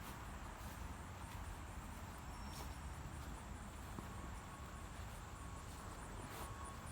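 Faint outdoor background: a low steady hiss and rumble with insects chirping in a rapid, high-pitched pulse.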